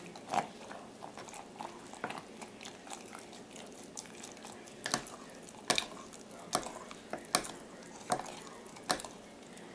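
A utensil stirring thick sourdough starter of flour and water in a glass jar, with irregular clinks and scrapes against the glass about once a second. The strokes get louder in the second half.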